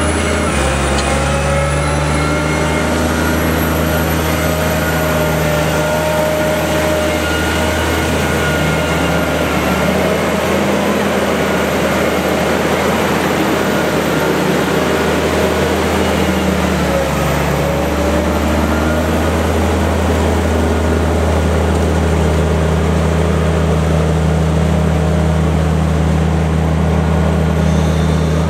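Grimme Varitron 270 self-propelled potato harvester running steadily under load while harvesting, its engine note dipping briefly past the halfway mark and then recovering.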